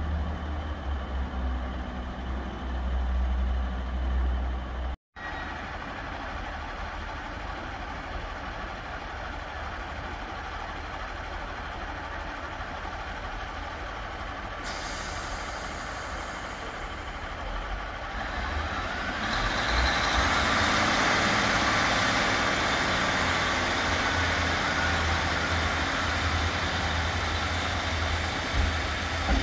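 A Northern Class 150 diesel multiple unit's underfloor Cummins diesel engines running at a station platform. The sound grows louder from about two-thirds of the way through. There is a brief dropout about five seconds in.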